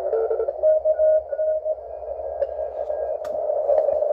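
Receiver audio from a uSDX shortwave transceiver tuned across the 20 m CW band: narrow-filtered band noise with short on-off Morse tones of CW signals coming and going as the frequency changes. Two sharp clicks come near the end.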